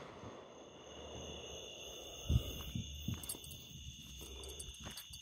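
The rumbling tail of an aerial firework shell's burst fading out, then three dull thumps between two and three seconds in. A steady high chirring of night insects runs underneath.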